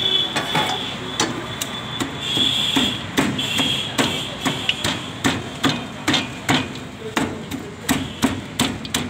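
Fried chicken pieces being pounded in a stainless steel bowl with a hand-held masher, a run of sharp knocks about three a second.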